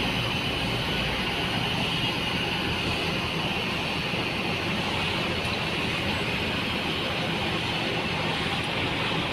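Mercedes-Benz coach's diesel engine running steadily with a low hum as the bus rolls slowly forward.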